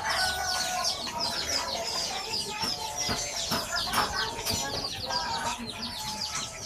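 Chickens clucking with many quick high chirps, and a few sharp clicks near the middle.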